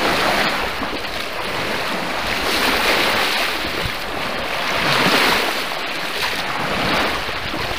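Small lake waves washing onto the Lake Huron shore, a steady rush of surf that swells twice, about midway and again a couple of seconds later.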